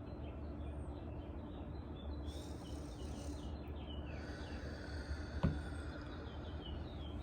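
Outdoor ambience: small birds chirping over and over, with an insect buzz coming in twice, over a faint steady low hum. A single sharp click sounds past the middle.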